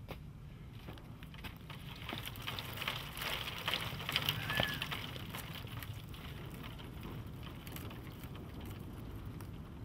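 Footsteps crunching and rustling through dry leaf litter and twigs, loudest in the middle and then fading, over a steady low rumble.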